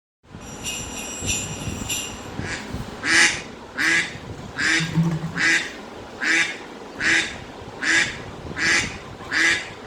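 A harsh, raspy call repeated at an even pace, about every three-quarters of a second, preceded by a second or two of high, even chirping tones.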